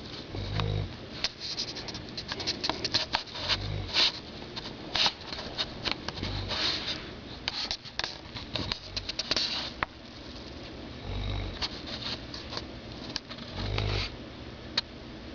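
Low snores every few seconds, with many sharp clicks and rustles over the first two-thirds that stop about ten seconds in.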